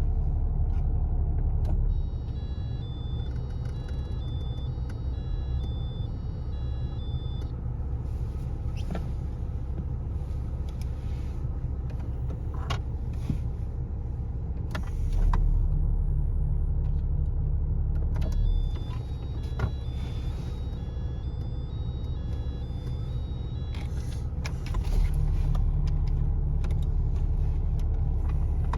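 Volkswagen T4 van engine idling steadily. Its low note drops about two seconds in and comes back up near the end. Scattered sharp clicks sound over it, and twice there is a run of short, high electronic tones stepping in pitch.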